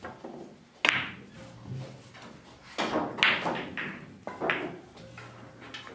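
Irregular sharp knocks and taps: one loud knock about a second in, then a quicker run of about five more about three to four and a half seconds in.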